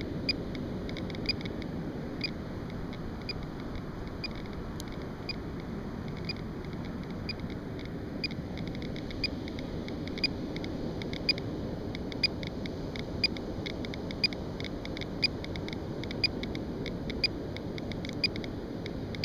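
GQ GMC-300E Geiger counter clicking rapidly and irregularly as it counts radiation, at a high rate of around 720 counts per minute over a hot spot in the sand. A louder, evenly spaced tick comes about once a second among the faster clicks, over a steady background hiss.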